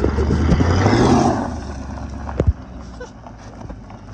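A 1972 Chevrolet C10 pickup's engine revs up as the truck pulls away across a dirt lot. Its pitch rises over the first second and a half, then the sound fades as the truck drives off. A single sharp click comes about two and a half seconds in.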